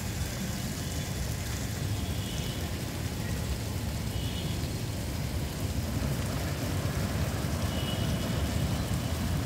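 Steady low rumble of road traffic from a nearby bus stand, with a few faint high chirps over it.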